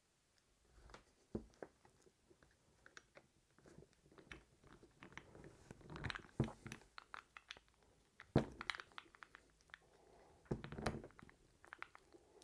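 Faint, irregular clicks and scrapes, with a few sharper knocks, from door-handle parts and a wooden lollipop stick being handled while epoxy is smeared around the handle plate's rivets.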